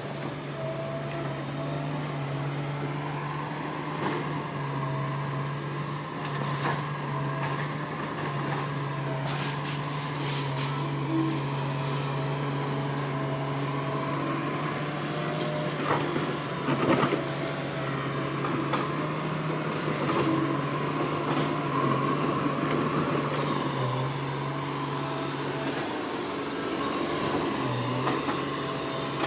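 Heavy earth-moving machine's diesel engine running steadily under work, with a few knocks about halfway through.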